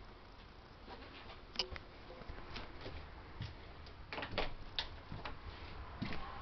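Scattered light clicks and knocks over a faint steady background. One sharp click comes about a second and a half in, and a cluster of knocks follows around four to five seconds in.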